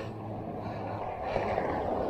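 Road traffic passing a moving bicycle: a steady noise of tyres and engines that swells a little past the middle as a car goes by.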